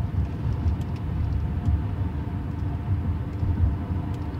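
Steady low road and engine rumble heard from inside the cab of a 2007 Chevrolet Silverado pickup while it is being driven.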